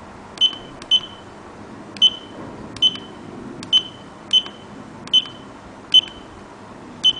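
Push buttons on a homemade Arduino alarm clock pressed repeatedly, about nine times at an uneven pace, each press giving a click and a short high beep from the clock's buzzer, the key-press feedback while setting the alarm.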